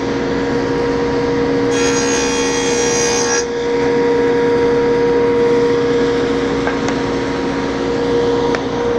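SawStop table saw with a stacked dado blade running steadily, then cutting a dado across a plywood piece: a louder, higher cutting noise starts about two seconds in and lasts about a second and a half, after which the blade spins freely again.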